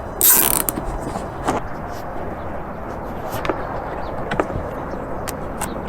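Hands working on a small part: a short, loud rasp just after the start, then scattered small clicks and taps.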